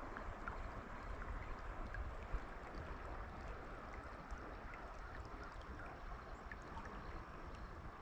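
Steady rush of river current flowing and rippling.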